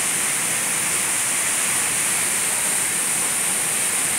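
Waterfall rushing into its plunge pool: a steady, even roar of falling water.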